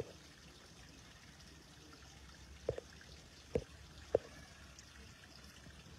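Quiet background with three short, faint clicks a little over a second apart in the middle.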